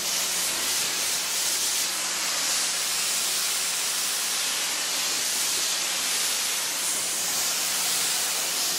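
Pressure washer spraying a steady jet of water onto a foam-covered car body, a loud continuous hiss with a steady low hum underneath. It starts abruptly.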